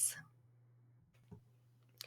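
Near silence after the end of a spoken word: room tone with a faint steady low hum and one small click about a second and a half in.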